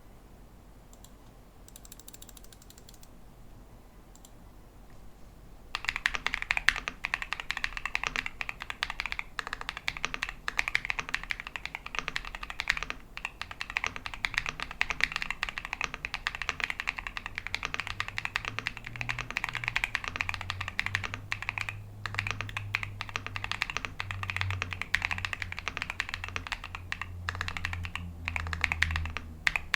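Mechanical keyboard with MMD Princess tactile switches being typed on quickly and continuously, a dense run of keystroke clicks that starts about six seconds in after a quiet opening.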